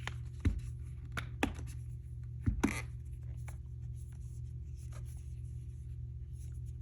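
A plastic phone case being handled and fitted onto a smartphone: several sharp clicks and taps in the first three seconds, then faint light handling, over a steady low hum.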